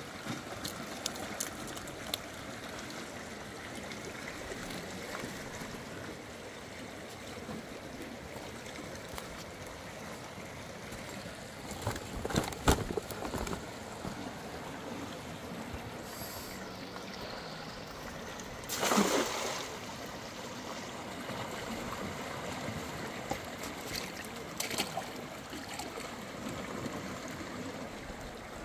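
A large river flowing and rushing steadily. A short cluster of knocks about twelve seconds in is the loudest sound, and a brief swish comes near nineteen seconds.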